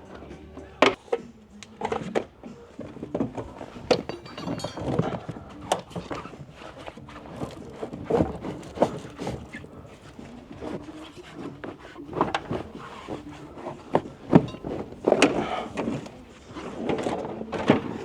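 Irregular knocks, thuds and rustling: push clips popping and sound-deadening insulation being pulled out of a vehicle's interior by hand.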